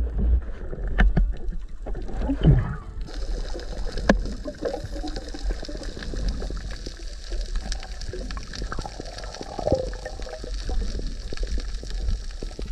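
Water splashing and knocking as the camera goes under, then underwater sound from about three seconds in: a steady hiss with many scattered clicks and crackles over low rumbling water movement.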